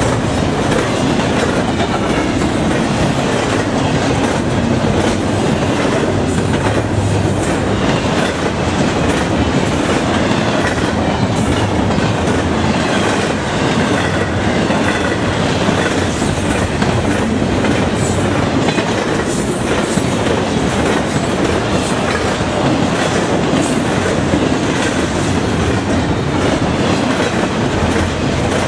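Double-stack intermodal freight cars rolling past at speed close by: a steady, loud rumble of steel wheels on the rails, with the clickety-clack of wheels over rail joints.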